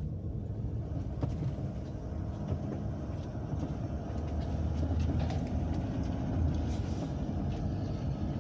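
Road and engine noise heard from inside a Sprinter van's cab while driving, a steady low rumble with a few scattered light clicks and knocks.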